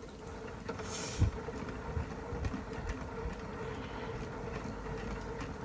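Steady mechanical hum with a constant mid-pitched tone over a low rumble, and a brief thump with a hiss about a second in.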